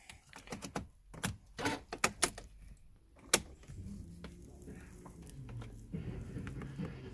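Car key and its key ring jangling and clicking as the key is pushed into the ignition lock and turned, a quick run of sharp clicks with one louder click near the middle. A low steady hum sets in about four seconds in.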